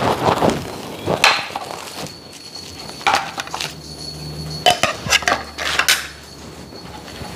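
Clicks and knocks of a plastic burger patty press as its lid and ring are pressed down, lifted off and set down on a cutting board. There is one sharp click about a second in, then scattered knocks and taps, with a cluster around five to six seconds.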